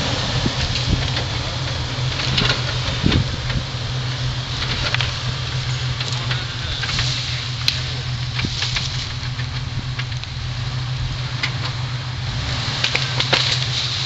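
2005 Jeep Wrangler Rubicon's 4.0-litre straight-six running steadily at low revs as it crawls up the ravine, with scattered short cracks and snaps over the engine hum.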